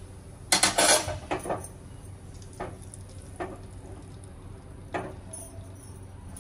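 Metal ladle clattering against a small tempering pan and the steel gas stove, loudest from about half a second to a second in, then a few single light clinks, over a faint sizzle of cumin and asafoetida heating in oil.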